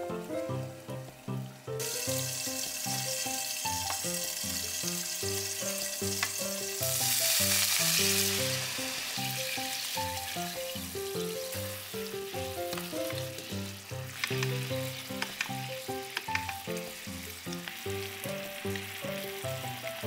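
Meat-wrapped rice balls sizzling in a frying pan, a steady frying hiss that starts about two seconds in and is loudest for a moment about seven seconds in, going on as a soy sauce, mirin and sake glaze cooks down around them. Light background music plays throughout.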